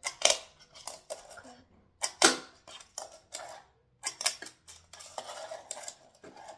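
Fingerboard clacking on a hard floor: a string of sharp clacks as the little board is flipped, lands and is picked up, the loudest about two seconds in. Softer scraping and rolling fills the gaps between them.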